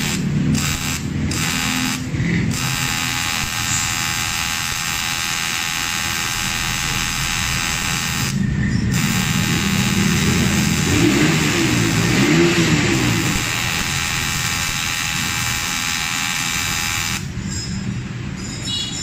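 Arc welding on a scooter's aluminium engine case: a steady, high, buzzing arc that breaks off briefly about two seconds in and again about eight seconds in, then stops near the end.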